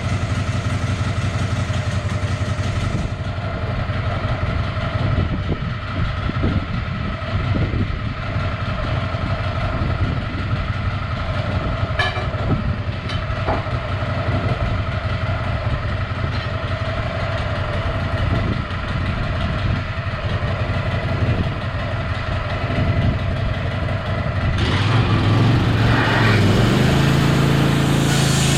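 An engine running steadily, which speeds up to a higher, steady pitch near the end.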